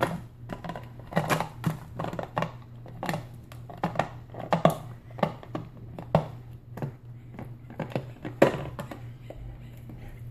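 A dog chewing an empty plastic Coke bottle: irregular crackles and crunches of the plastic under its teeth, thinning out near the end.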